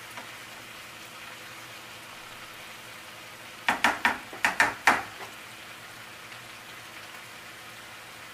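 Greens sizzling steadily in a skillet over a gas flame. About halfway through, a cooking spoon knocks against the pan in a quick run of about six clatters.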